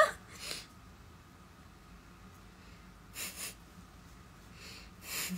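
A woman's soft breathy laughter through the nose: a short puff about half a second in, a double puff a little after three seconds, and a softer, longer exhale near the end.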